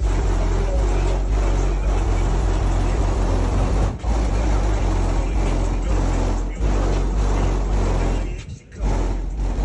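A vehicle engine running with a steady low rumble, broken by short dropouts about four and six and a half seconds in and a longer one near the end.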